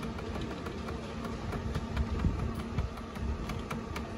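64-egg incubator's egg-turning motor running, a steady low hum as the rollers slowly turn the eggs, with a few faint ticks and low knocks.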